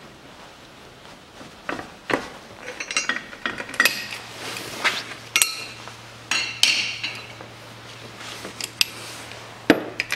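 Metal hand tools clinking and clattering as a ratchet handle, extension and socket are handled and fitted together, a run of ringing metallic clinks with a sharp knock near the end.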